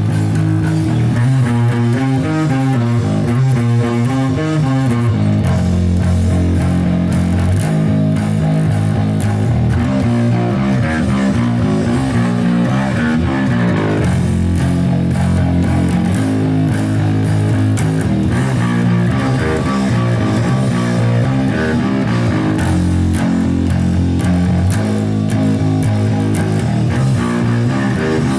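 Rock music with guitar and bass guitar playing steadily: a band's own newly recorded song played back from the studio recording.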